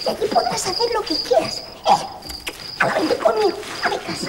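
Cricket chirping in a steady rhythm, about three short high chirps a second. Over the chirps, a voice makes wordless sounds that rise and fall in pitch; these are the loudest thing heard.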